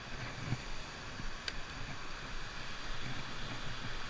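Wind on the microphone: a steady hiss with a low rumble, and one faint click about a second and a half in.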